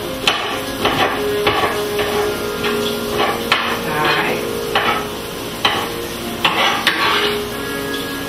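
Knife slicing garlic on a cutting board: a dozen or so sharp chopping knocks at an uneven pace, roughly one every half second to second.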